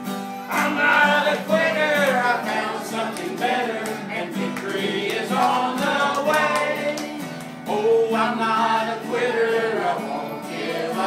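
A gospel song sung to acoustic guitar accompaniment, the singing voices rising and falling over steady guitar chords.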